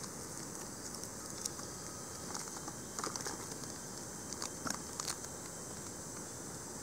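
Rainforest ambience: a steady high insect hiss, with scattered small crackles and clicks of dry leaf litter, a cluster of them about three seconds in and again near five seconds.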